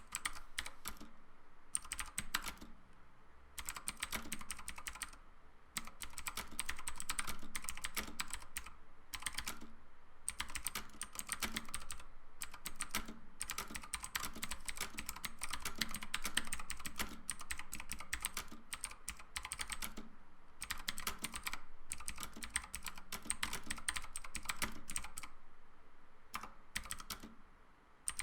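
Typing on a mechanical keyboard with blue switches and PBT keycaps: fast runs of sharp key clicks in bursts, with short pauses between them.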